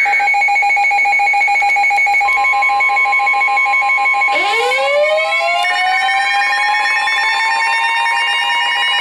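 Electronic emergency alert tones layered together: a rapid pulsing beep at two pitches, joined about two seconds in by a steady tone, then about four seconds in by a siren winding up, rising in pitch and levelling off.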